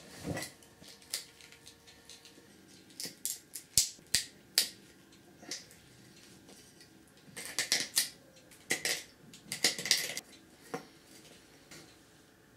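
Hand-handling of a small wooden block and a metal pin being fitted into its drilled holes: scattered clicks and clinks of metal on wood, with a few sharper knocks around four seconds in and short bursts of scraping a little later.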